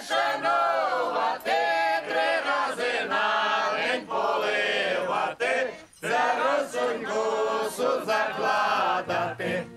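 A group of women singing a traditional Ukrainian Malanka carol unaccompanied, in held, sung phrases with a brief break about six seconds in.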